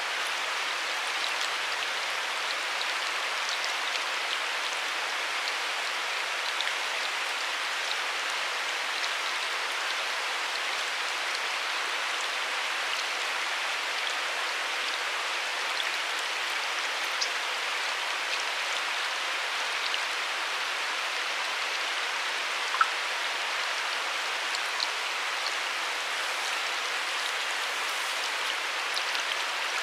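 Steady rush of river water running over rocks, with a few faint ticks and one sharper click about three-quarters through.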